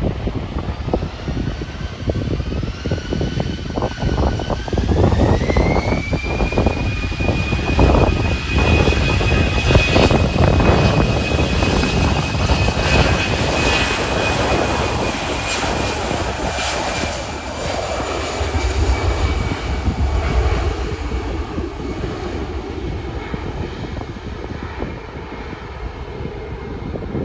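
Jet airliner's engines spooling up, typical of power being set for takeoff. A whine rises in two steps over the first seven seconds, then holds steady over a deep roar and fades after about twenty seconds.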